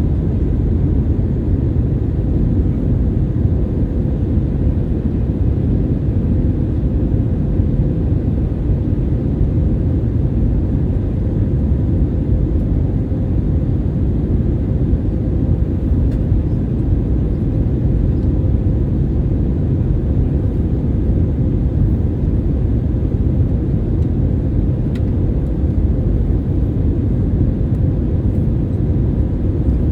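Steady in-cabin noise of an Airbus A320neo with CFM LEAP-1A engines on descent. It is a deep, even rumble of engines and airflow with a faint steady hum over it.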